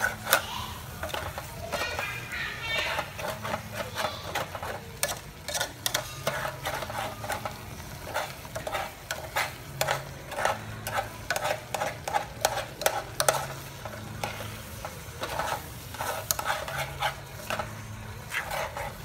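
Metal spoon stirring mushrooms and herbs in a metal pot, with a quick, irregular run of clinks and scrapes against the pot, over a low sizzle of the food cooking.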